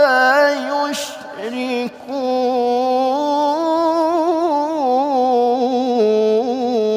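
Male Quran reciter's voice in melodic tilawah style, drawing out long ornamented notes with a wavering, trilled pitch. There is a short break about a second in, and near the end the line steps down to a lower held note.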